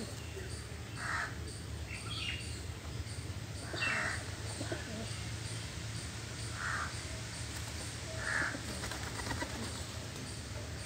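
Crows cawing: four short harsh caws a few seconds apart, over a steady low background hum.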